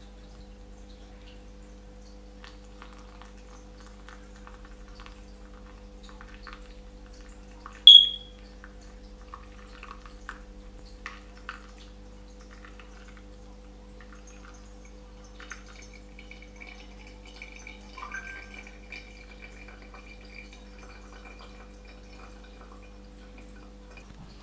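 Hot water poured in a thin stream from a gooseneck kettle onto coffee grounds in a V60 dripper, with small dripping and crackling sounds as the bed wets. A single sharp ringing ping about eight seconds in, and a steady low hum throughout.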